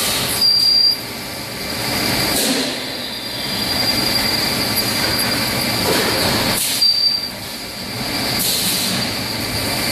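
Metal lathe running, turning a Eunos 30X gearbox output shaft while the tool cuts, with a steady high-pitched whine. The whine gets sharply louder twice, briefly: about half a second in and again near seven seconds in.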